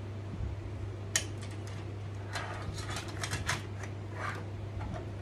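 Makeup containers being handled on a table: a sharp click about a second in, then a run of small clicks and rattles, over a steady low hum.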